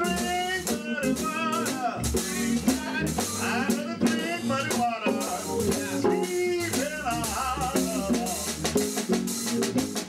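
Live small-group jazz: a saxophone plays a bending, vibrato-laden melody over sustained Hammond organ chords, with a drum kit keeping time on the cymbals.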